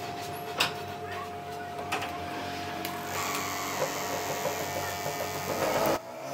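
Metal hand tools working on a small electric motor: a few light knocks, then a continuous scraping rasp from about three seconds in that stops abruptly near the end, over a steady whine.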